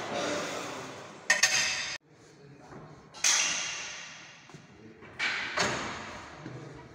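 Sharp metallic clanks and thuds from a Smith machine's bar and weight plates, each ringing out in a large echoing gym hall, four or five strikes a second or two apart. The sound cuts off abruptly about two seconds in before the clanks resume.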